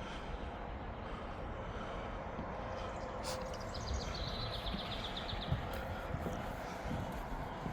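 Footsteps of a person walking, as scattered soft thuds over a steady background noise. A brief high, rapid trill comes in about four seconds in.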